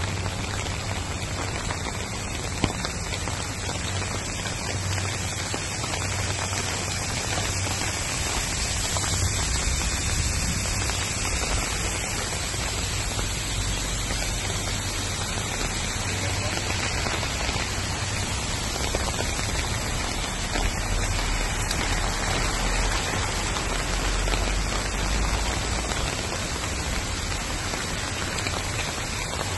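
Steady rain falling on a wet road, an even hiss with a low rumble underneath.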